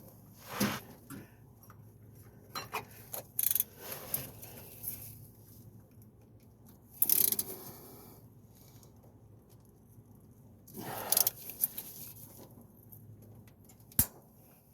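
Socket wrench and tools clicking, clinking and scraping under a truck while an oil filter is being loosened, with a single sharp crack near the end that is heard as the filter or its housing letting go, and which the owner fears was the housing cracking.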